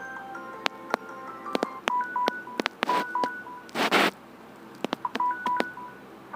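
Samsung Galaxy J7 stock ringtone playing: short, bright electronic beeps in a skipping rhythm mixed with sharp clicks, with two brief hissing bursts about three and four seconds in, the second the loudest.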